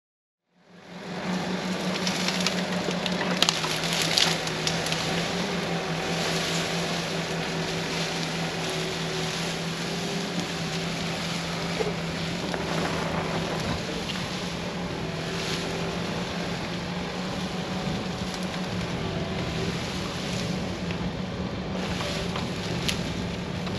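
Diesel machinery engine running steadily under load, with a held low hum and scattered sharp clicks and cracks over it. It starts after a brief silence.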